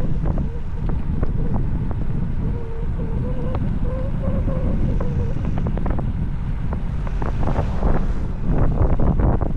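Wind buffeting the microphone of a bicycle coasting downhill at high speed, a loud steady rumble. A faint wavering whine runs through the middle few seconds, and a few light ticks come near the end.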